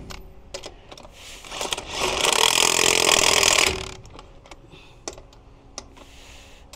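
Impact wrench run in one burst of a little under two seconds, spinning lug nuts onto a truck wheel, with scattered sharp clicks and knocks of the nuts and socket before and after.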